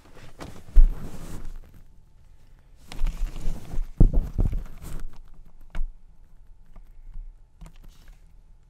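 Handling noise: rustling and small knocks from the plastic door-lock switch housing and the handheld camera being moved about, with a sharp thump about a second in and a louder patch of rustling and knocks from about three to five seconds.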